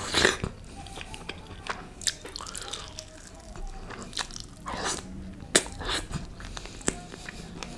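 Close-miked chewing and biting of white butter chicken torn off the bone, with sharp wet mouth clicks and smacks every second or so.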